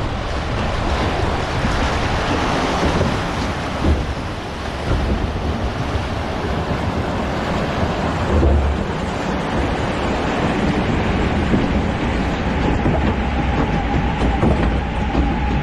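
Log flume ride in motion: a steady rush of water and wind with a low rumble from the log boat and ride machinery. About eleven seconds in, a faint steady hum joins.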